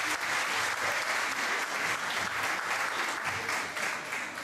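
Audience applauding with many hands clapping, the applause easing off slightly toward the end.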